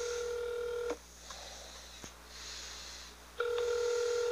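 Telephone ringback tone heard down the line as a call rings at the far end: a steady beep that stops about a second in, then comes again about three and a half seconds in.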